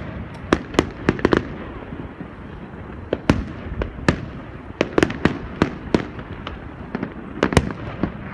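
Aerial fireworks display: a string of sharp bangs at irregular intervals, some in quick clusters, over a steady background rumble.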